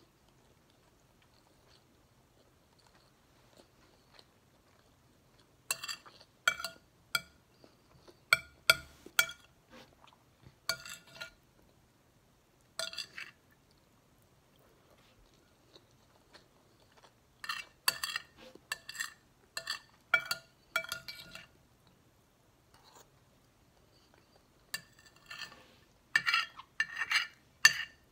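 Metal spoon clinking and scraping against a ceramic bowl, in clusters of several quick strikes with quiet pauses between.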